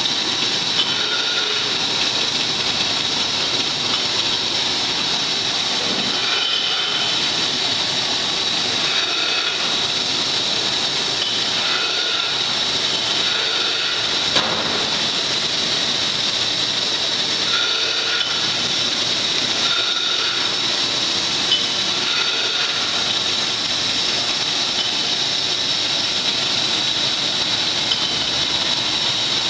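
Bottling line for glass jars running: a steady loud air hiss with a high whine from the bottle cleaner, over the noise of the plastic-chain conveyor. Brief higher tones come and go, with an occasional faint click.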